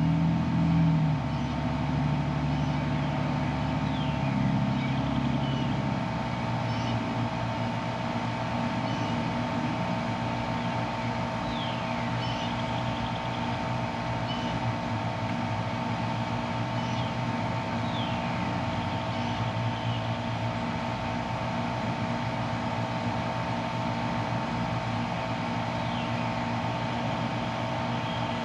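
Steady mechanical hum outdoors, with a lower engine-like sound shifting in pitch over the first few seconds and then fading. Short high chirps come now and then.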